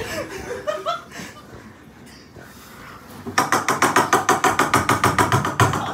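Hands clapping fast and evenly, about eight sharp claps a second, starting a little past halfway. A brief burst of voices comes first.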